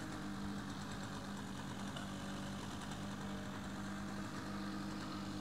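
A steady engine drone, a low even hum with fixed tones that hold without change, and a faint higher whine drifting slowly in pitch.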